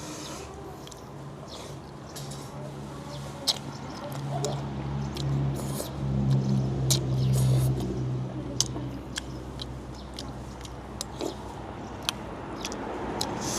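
Eating kuay jap noodle soup: frequent small clicks of utensils against a bowl, with chewing. A low steady hum rises about four seconds in and fades out around nine seconds.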